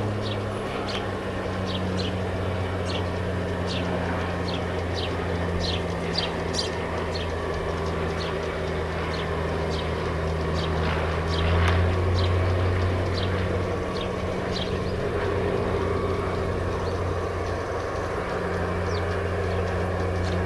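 G-scale garden railway model trains running: a steady low hum with a stream of short, high ticks, about two a second, that thins out near the end.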